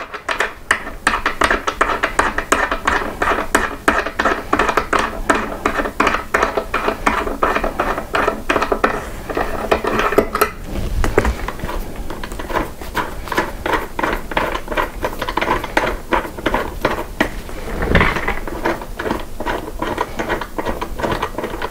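Rapid, fairly regular metallic clicking of a hand tool driving long screws into a gaming chair's armrest, with a dull thump about ten seconds in and another near the end.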